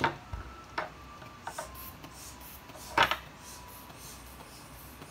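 Handling of a blood-pressure cuff and stethoscope during inflation: several sharp clicks and knocks, the loudest about three seconds in, and a faint soft hiss repeating about three times a second as the rubber hand bulb is squeezed.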